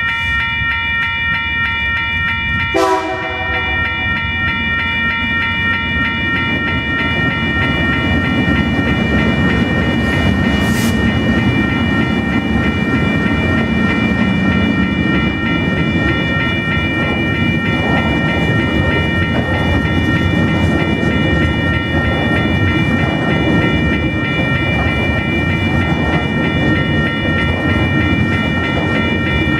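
TasRail TR-class diesel locomotives hauling a loaded coal train over a level crossing. A horn blast ends just at the start and a short horn toot comes about three seconds in. Then the locomotives rumble past and the coal hopper wagons roll by with steady wheel clatter, while the crossing's warning bell rings on throughout.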